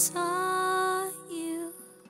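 A woman singing, holding one long note for about a second and then a shorter one, fading out near the end.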